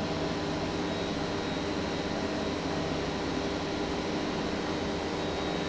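A 300 W spindle motor running steadily together with NEMA 23 stepper motors stepping through a helical toolpath: an even whir with several steady hum tones.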